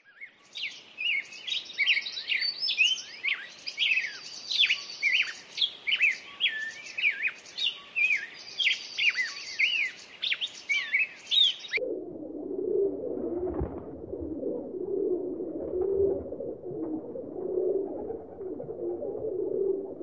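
A songbird singing a rapid, busy run of high chirps and whistles, which stops abruptly about twelve seconds in. Feral pigeons cooing takes over, a low, wavering coo that carries on steadily.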